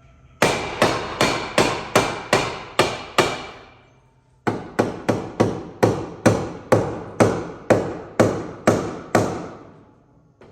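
A mallet striking a pry bar in a steady run of blows, each ringing briefly: about eight blows, a pause of about a second, then about a dozen more at roughly two to three a second. The bar is levering a car's rear lower control arm into place for its bolt.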